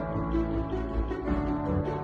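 Background music: a gentle tune with sustained pitched notes over a low bass line.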